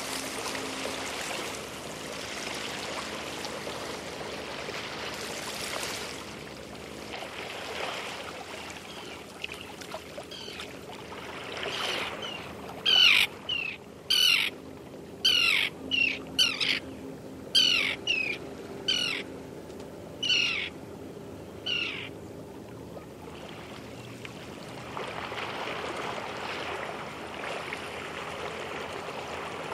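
Light waves lapping and sloshing against boats, a soft steady wash. In the middle a bird calls about a dozen times, short, high chirps that fall in pitch.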